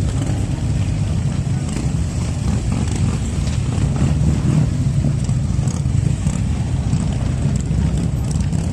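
A motor vehicle running with a steady low rumble that holds at an even level, without revving up or down.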